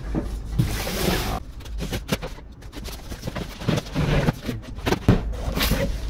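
A large cardboard shipping carton is slid up and off the boxed model inside, cardboard scraping and rubbing against cardboard. There is a longer scraping rush about a second in, then scattered scrapes and knocks as the carton is lifted and pulled away.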